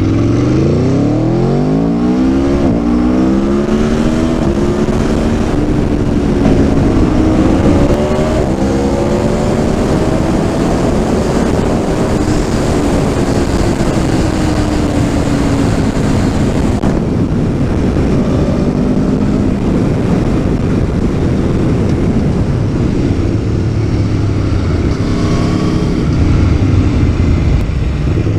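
Aprilia Tuono V4 1100's V4 engine under hard acceleration, its pitch climbing steeply in the first few seconds, then rising and falling with the revs, over steady wind rush.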